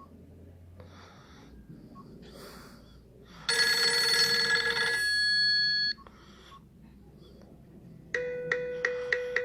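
Nokia 5230 ringtones: about three and a half seconds in, a loud held electronic chord sounds for over two seconds and cuts off sharply. Near the end another ringtone starts with quickly repeated struck bell-like notes.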